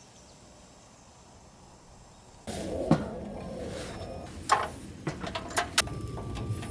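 Quiet ambience, then from about two and a half seconds in a louder background with a string of sharp knocks and clicks, and a thin steady tone starting near the end.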